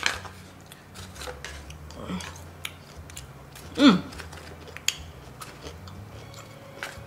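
A person chewing a mouthful of food close to the microphone, with many small, light mouth clicks. A short vocal sound with a falling pitch comes just before four seconds in.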